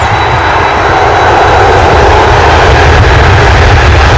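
Four jet engines of a Boeing 747-400 freighter at takeoff thrust, a loud steady roar with a deep rumble that slowly grows louder as the jet rolls down the runway toward the listener.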